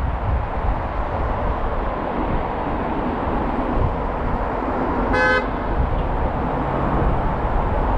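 Steady road and tyre noise of a car driving, with one short car-horn toot about five seconds in.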